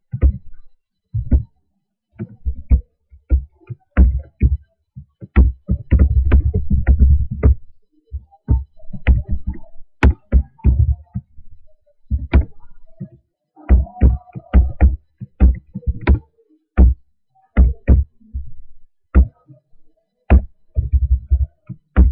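Computer keyboard keys being typed in irregular runs, each keystroke a short low thump, with a denser flurry of typing about six seconds in.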